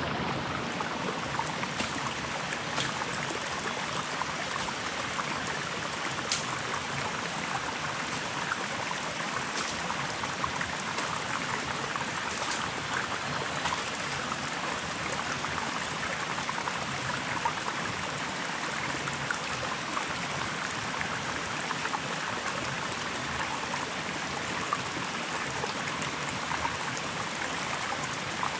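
Small rocky forest stream babbling steadily over stones.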